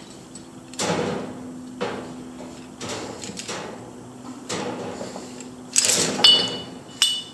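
Climbing rope being handled and pulled through an aluminium figure-eight descender: a series of short rope swishes and rubs. Near the end, clinks and brief metallic ringing from the figure eight and carabiners as the rope falls free.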